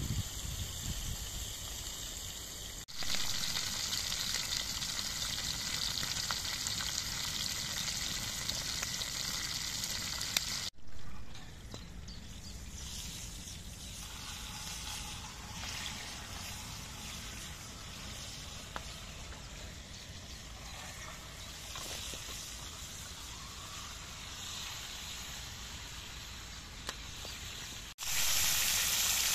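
Whole mackerel frying in a cast-iron pan over a wood fire: a steady hissing sizzle. It jumps abruptly louder about 3 seconds in, drops sharply softer at about 11 seconds, and jumps loud again near the end.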